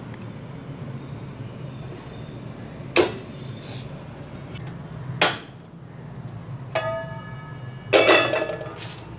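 A few sharp metallic knocks and clanks over a steady low hum, the last two ringing with a metal tone and the loudest, clattering one near the end: a wok being handled and set down on a gas stove's pan support.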